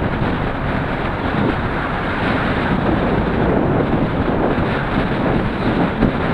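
Wind buffeting a bicycle-mounted action camera's microphone while riding at about 25 km/h: a loud, steady rushing, mixed with tyre and road noise.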